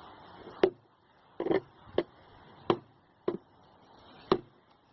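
Six sharp knocks or cracks at uneven intervals, about half a second to a second apart.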